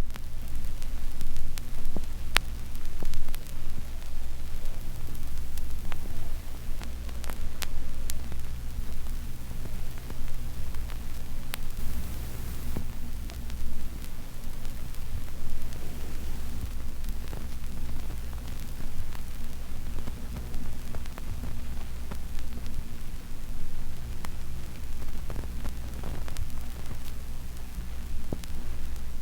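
Surface noise of a worn 1970s vinyl record: steady crackle and hiss with scattered sharp pops, over a low steady hum.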